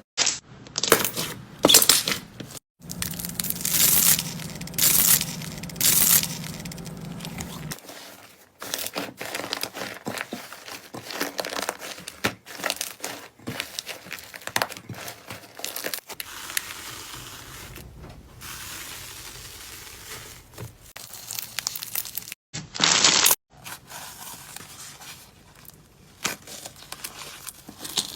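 Slime being pressed, squeezed and stretched by hand, giving many quick clicks and crackles in several stretches that start and stop abruptly.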